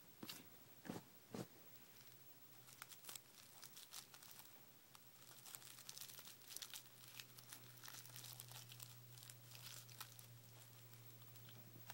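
Faint crinkling and rustling of a rolling paper being rolled and tucked between the fingers around ground cannabis. A few soft knocks come in the first second and a half.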